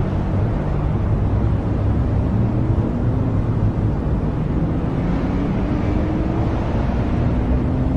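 Outdoor location sound: a steady low rumble of wind on the microphone, with a faint tone slowly rising in pitch through the second half.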